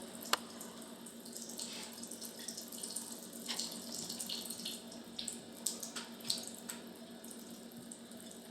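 Faint trickling water over a steady low hum, with a few light ticks and drips.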